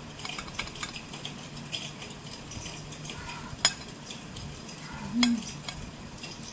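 A knife cutting the crusts off a slice of bread and scraping against a ceramic plate, with scattered light clicks and a sharp clink of the blade on the plate about three and a half seconds in.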